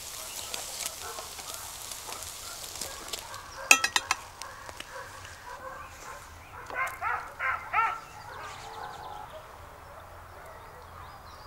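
Farm poultry calling: four short calls in quick succession about seven seconds in. A quick run of sharp clicks comes a few seconds earlier.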